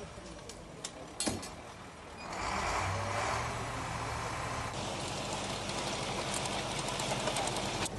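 Truck-mounted crane's engine running with a steady low hum, joined about two seconds in by a loud hissing rush; a sharp knock sounds about a second in.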